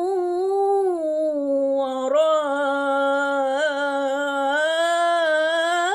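A woman chanting Quranic recitation of Surah al-Buruj, drawing one word out into a long melodic note that slides slowly down and back up in pitch without a break.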